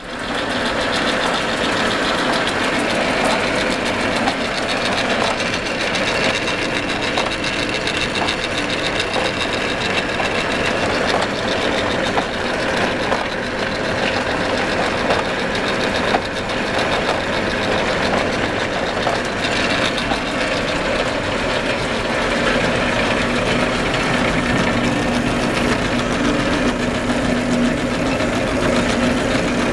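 Rotary board cutting machines running: a steady mechanical clatter and hum, with a few sharp clicks along the way. A steady low hum grows stronger about two-thirds of the way through.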